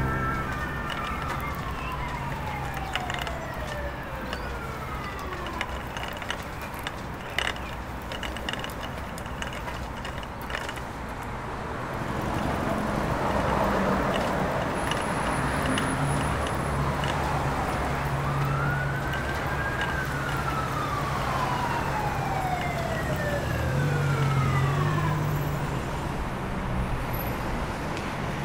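A siren wailing twice, once at the start and again about two-thirds of the way through. Each wail rises quickly, then falls slowly over several seconds, over a steady background rumble.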